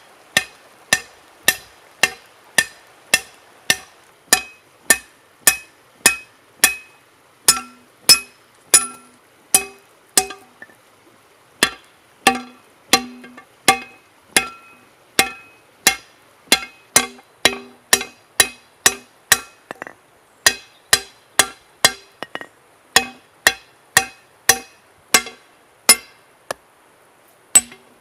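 Hand hammer forging a red-hot carbon-steel bar on a stone anvil: steady blows about two a second, each with a short metallic ring. Brief pauses come about ten seconds in and just before the end.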